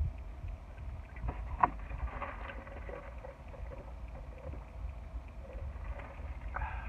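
Close-up mouth sounds of someone chewing food with open-mouthed smacking, with a few sharp clicks, the loudest about a second and a half in, over a steady low rumble.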